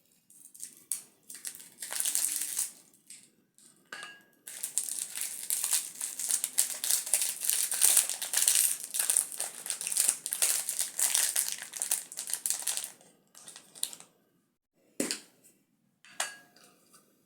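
Toy blind-box packaging crinkled and rustled by hand as it is opened: a few short bursts, then about eight seconds of continuous crinkling, ending in a few separate clicks and taps.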